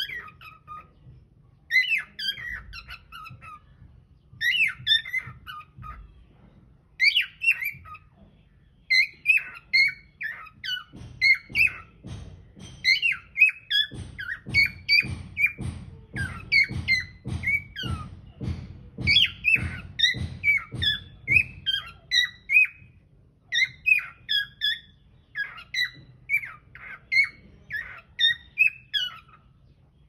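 Cockatiels chirping and warbling in short whistled phrases, with a denser, busier run of song in the middle.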